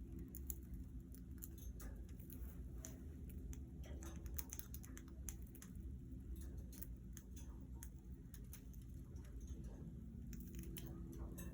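Budgies moving about their cage: scattered light clicks and scratches, many in quick succession, over a steady low hum.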